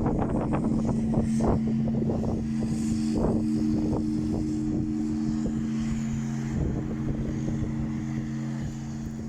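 Large church bell ringing out in the blagovest, single strokes on one big bell: its deep, steady hum of several tones slowly fades. Wind buffets the microphone.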